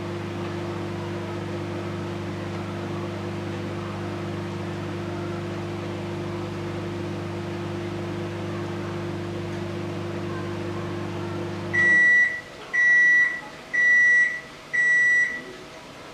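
A household appliance's steady electric hum cuts off about three-quarters of the way in, followed by four electronic beeps about a second apart, each a single high tone.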